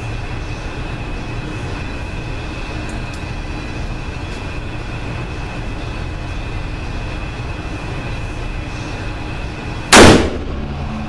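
A single very loud .460 S&W Magnum handgun shot about ten seconds in, over a steady background rush.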